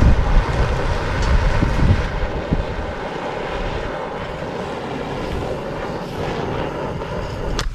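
Steady rushing of a gas torch flame, used to light a bundle of dry split bamboo, cut off abruptly with a click near the end.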